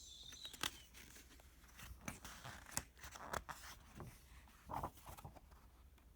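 Faint rustling with a few sharp clicks, from the paper pages of a picture book being handled.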